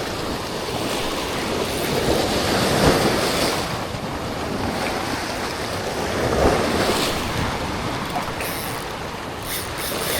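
Ocean surf washing against the inlet rocks in swells, with wind buffeting the microphone.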